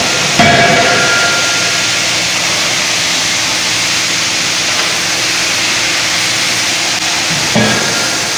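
25 kJ CNC drop forging hammer striking hot steel in its die: a heavy blow about half a second in, followed by metallic ringing, and another near the end. A steady hiss of running machinery lies under both.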